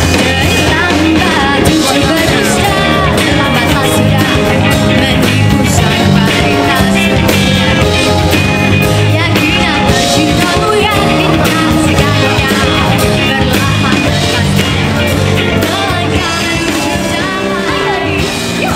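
Live rock band playing loud, with a steady drum beat and a sung vocal line.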